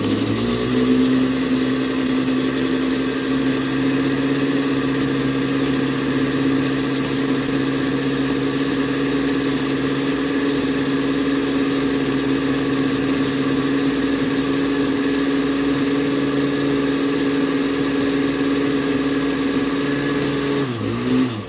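Electric blender motor running steadily at high speed, grinding a frozen ice-and-soda slush with gummy candies to break up the bits still left in it. It is just reaching speed at the start and slows down and stops near the end.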